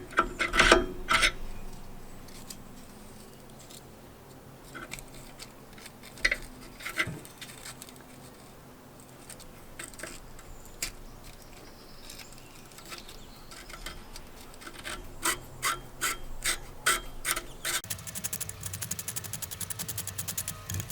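Scraping and rubbing inside a metal bore as it is cleaned out: scattered rasping strokes and clicks, then a fast, even run of strokes near the end.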